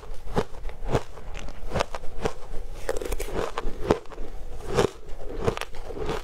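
Shaved ice being crunched between the teeth, mouthful after mouthful: a steady run of crisp crunches, about two a second.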